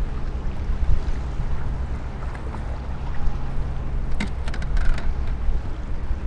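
Strong wind rumbling on the microphone over water slapping against a small fishing boat. A quick cluster of sharp clicks or splashes about four seconds in.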